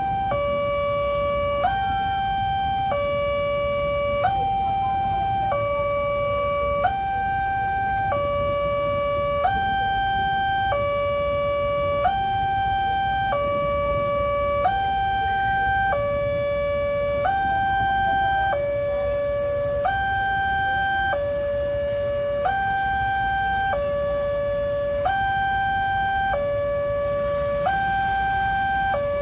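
Railway level-crossing warning alarm sounding its two-tone electronic signal, alternating between a lower and a higher tone about every two-thirds of a second, over a steady low rumble.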